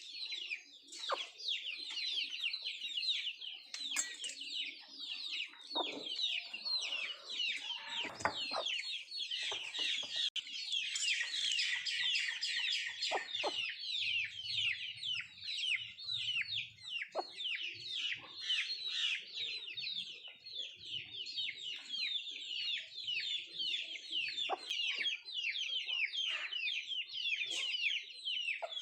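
A flock of country chickens feeding: a constant stream of high, rapid peeping from many birds at once, with occasional lower clucks and a few short clicks.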